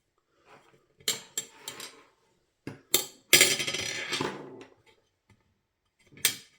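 Small craft pieces being handled on a desk: a few light clinks and taps, with a longer rustling scrape about three and a half seconds in and one more tap near the end.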